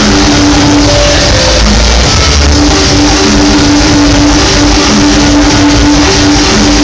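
Loud dubstep played over a club sound system, with heavy bass and a held synth note that drops out briefly about a second in and returns. The recording is overloaded and distorted.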